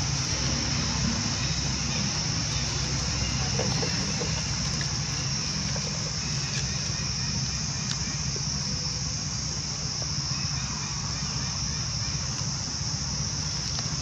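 Steady high-pitched drone of insects over a continuous low rumble.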